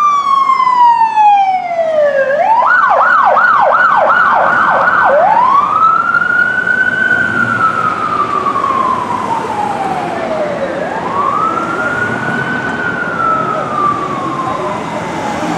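Electronic siren of a Ram paramedic ambulance. A falling wail switches for a couple of seconds to a fast yelp, then goes back to slow wail cycles rising and falling. It grows fainter as the ambulance moves away.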